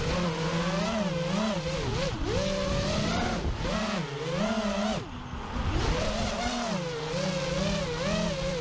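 FPV racing quadcopter's motors and propellers whining, the pitch swooping up and down constantly with the throttle as it flies freestyle. About five seconds in the whine drops away briefly, then climbs again.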